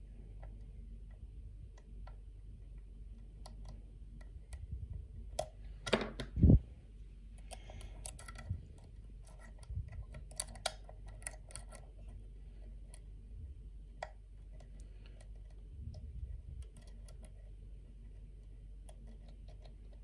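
Lock picks working in a pin-tumbler challenge lock: small, irregular metallic clicks and taps of the pick and tension tool in the keyway, with a louder knock about six seconds in.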